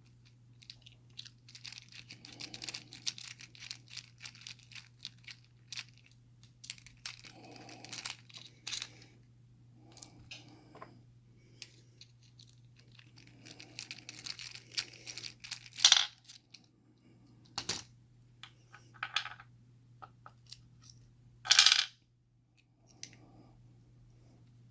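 Small metal clicks, taps and scrapes of a Kryptonite padlock and small tools being handled, with two louder clacks, one about two-thirds through and one near the end. A steady low hum runs underneath.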